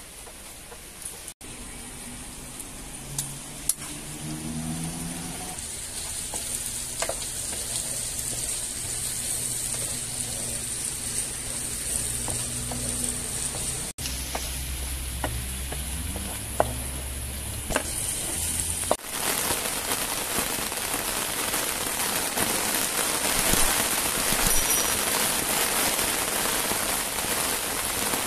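Chicken hearts and peppers sizzling in a frying pan as they are stirred with a wooden spoon, with a few light knocks of the spoon on the pan. About two-thirds of the way through it cuts to steady rain.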